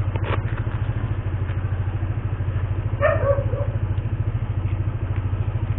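Motorcycle engine idling steadily with an even, fast pulse.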